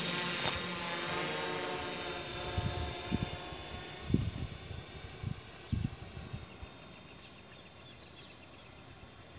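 F450 quadcopter's brushless motors and propellers buzzing, a steady whine that fades away as the drone climbs and flies off. In the middle, a few low thumps of wind gusting against the microphone.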